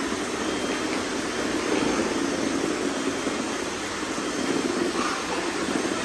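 Several robot vacuums running at once, sweeping confetti off a concrete floor: a steady hum of suction fans and brush motors.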